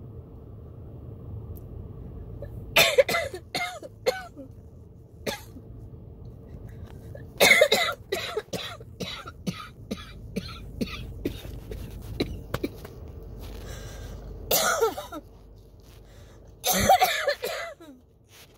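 A person in a coughing fit from a tickle in the throat: hard coughs in clusters a few seconds apart, the loudest about seven or eight seconds in, followed by a run of smaller quick coughs.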